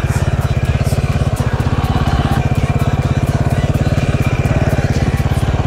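SWM enduro dirt bike's single-cylinder engine idling steadily, with a fast, even thumping beat.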